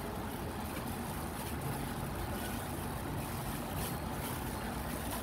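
Steady low rumbling background noise, with faint rustling and scraping from a plastic-gloved hand mixing flour, egg and milk in a stainless steel bowl.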